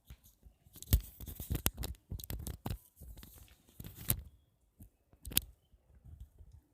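Screwdriver turning a screw out of a Canon LBP 3460 laser printer's fuser unit: irregular scraping and several sharp clicks.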